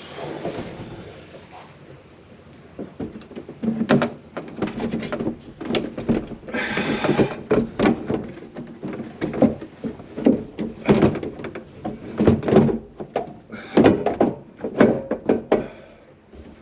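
A Suzuki Every (DA62) dashboard being worked into a Suzuki Carry truck cab: many sharp knocks and thuds of the dash against the cab, with a longer scrape about seven seconds in.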